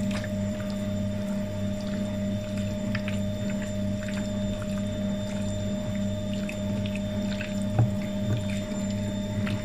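Hands squelching and kneading raw chicken pieces in a thick yogurt and spice marinade in a glass bowl, making soft wet squishes with a light knock against the bowl about eight seconds in. A steady electrical hum runs underneath and is louder than the mixing.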